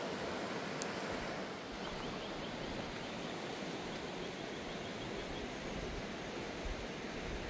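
Steady rushing of a fast-flowing river, an even wash of water noise.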